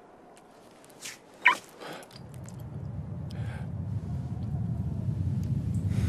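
Cartoon sound effects: two short sharp squawk-like sounds, then a low rumble that builds steadily louder.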